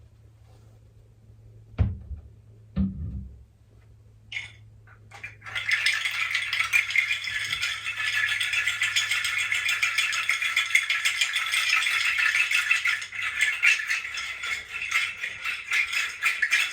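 Two low thumps, then a hand rattle shaken steadily and continuously from about five seconds in.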